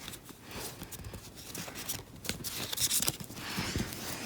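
Trading cards and a foil booster-pack wrapper being handled: soft taps and shuffles, with a brief rustle about three seconds in.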